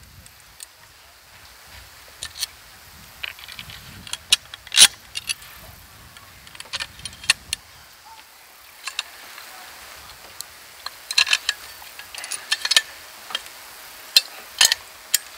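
Small metal screws and parts of a pole-anchor mount bracket clicking and clinking in the hands as the bracket is taken apart, in irregular sharp clicks, the loudest about five seconds in.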